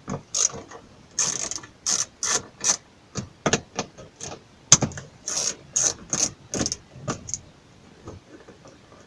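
Small 10 mm ratchet clicking in short, irregular strokes as two bolts are unscrewed, with the clicking thinning out after about seven seconds.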